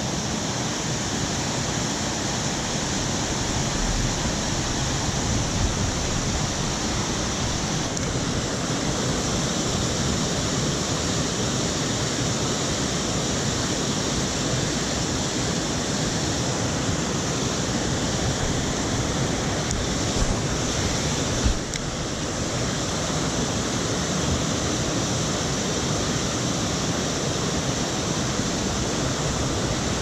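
Rushing water of a Pocono mountain trout stream and its waterfalls, a steady, full rush with a brief dip about two-thirds of the way through.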